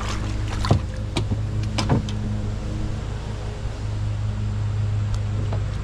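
Steady low mechanical hum with a few light knocks, the clearest near one and two seconds in.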